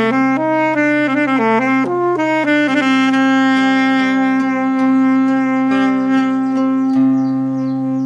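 Saxophone playing a slow melody, a few short stepping notes and then one long held note from about three seconds in, over a steady low backing tone.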